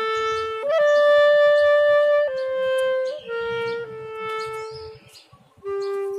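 Background music: a slow melody on a wind instrument, a few long held notes, breaking off briefly about five seconds in before going on.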